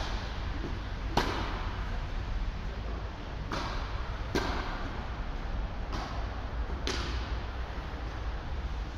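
Tennis balls struck with rackets during a doubles rally: five sharp pops, the first and loudest about a second in, the rest one to two seconds apart, each echoing in a large hall. Underneath runs a steady hiss of heavy rain on the roof.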